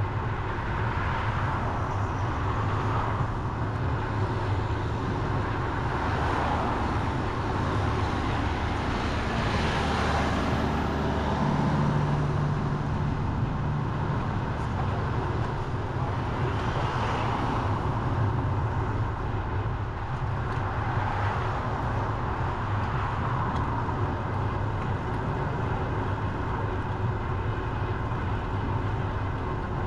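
Steady road traffic heard from a bicycle: a continuous rush of cars going by, swelling and fading every few seconds. A lower engine hum stands out for a couple of seconds around twelve seconds in.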